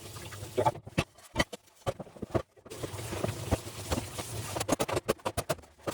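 A run of irregular clicks and knocks from items being handled, coming thick and fast near the end, over a steady low hum.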